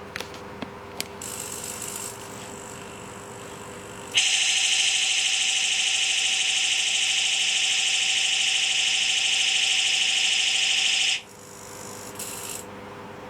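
Electronic beam-rifle sound effect from the Arduino-rigged Gundam model's small speaker: a loud, steady buzzing tone that starts about four seconds in, holds for about seven seconds and cuts off suddenly. A few sharp clicks and a short hiss come before it.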